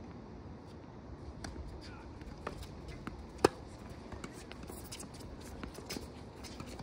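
Tennis ball struck by rackets during a rally: a series of short sharp pops and taps, with one much louder hit about three and a half seconds in.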